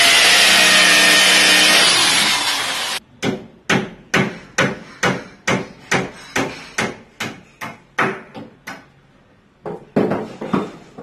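A carpenter's electric power tool runs loud and steady, then stops about three seconds in. A hammer then strikes wood about a dozen times at a steady two or three blows a second, the blows growing fainter. After a short pause come a few more blows near the end.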